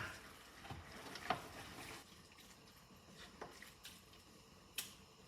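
A spoon stirring a thick tomato-based sauce in a pot: faint wet squishing with a few short clinks of the spoon against the pot.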